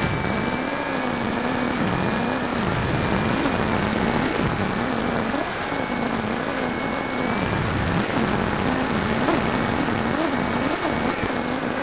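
Firebird Delta Ray RC plane's electric motor and propeller in flight, heard from the keychain camera on board, with heavy wind rush over the airframe. The motor's low hum wavers up and down about once a second.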